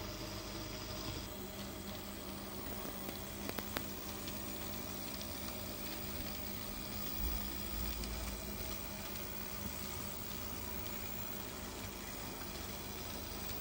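HO-scale brass PFM three-truck Climax model locomotive running slowly with log cars: a steady whirr of its motor and gear drive over a noisy hiss, with a few small clicks from the wheels on the track about three to four seconds in.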